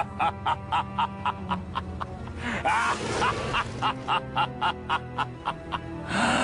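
Evil demon laugh sound effect: a long cackle of short 'ha' pulses, about three a second, over a steady low droning hum, with a louder rushing swell near the end.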